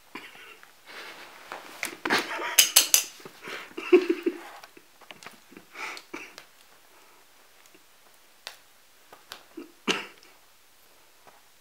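Shiny nylon fabric rustling and crinkling as a cat rolls and bats at a dangled ribbon toy, in irregular bursts that are loudest a few seconds in, with a few sharp scuffs and clicks later on.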